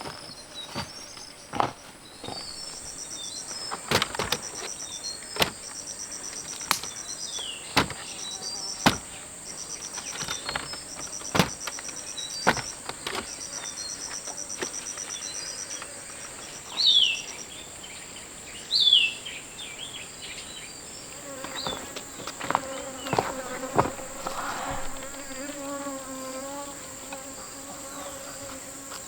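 A steady high-pitched drone of insects, with rapid pulsed insect trills through the first half. Two loud falling bird calls come about two seconds apart past the middle. Sharp knocks and clicks are scattered throughout, and a low, wavering pitched sound comes in near the end.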